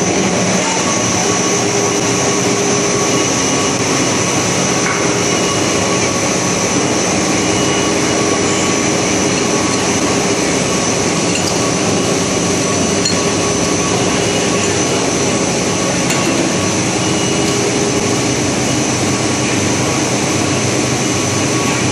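Snack pellet extrusion and forming line running: a loud, steady machinery drone with several constant motor whines that hold throughout.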